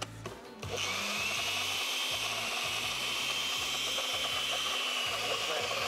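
Countertop blender switched on less than a second in and running steadily, with a high whine over its motor noise, churning a thick batter of cocoa, egg, pancake flour and milk.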